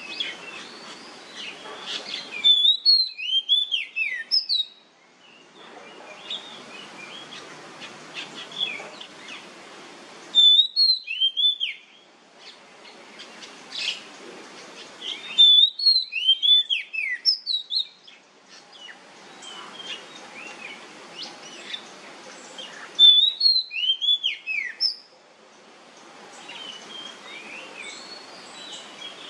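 Oriental magpie-robin (kacer) singing: a loud phrase of clear whistled notes, many sliding downward, repeated four times several seconds apart. Between phrases there are softer scattered chirps over a steady hiss.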